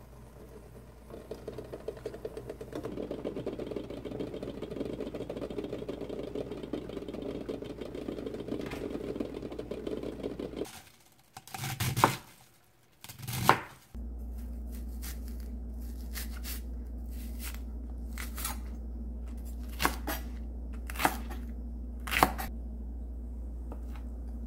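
Water boiling in a pot with eggs in it, then a chef's knife cutting cabbage on a plastic cutting board with two sharp chops. After that, the knife slices square fish-cake sheets, with a few knocks on the board over a steady low hum.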